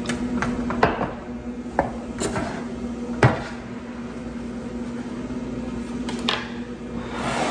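Dishes being moved about on a countertop: a handful of knocks and clinks as a glass bowl and a foil-lined metal baking pan are picked up and set down, the loudest a little after three seconds in. A steady low hum runs underneath.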